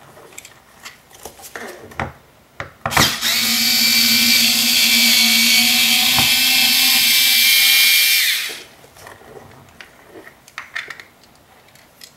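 Cordless electric screwdriver with a long bit backing out the door-panel screws under the armrest pull: a steady motor whine that runs for about five seconds from about three seconds in, then winds down. Light taps and clicks of the bit against the screws and plastic trim come before and after it.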